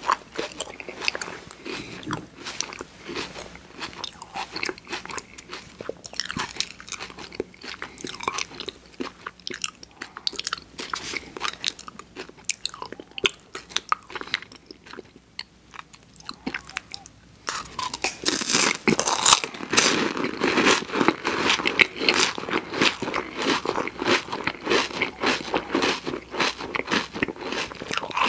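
Close-miked biting and crunching of a wafer ice cream cone, with wet chewing mouth sounds. The crunching eases off for a few seconds about halfway through, then comes back louder and denser.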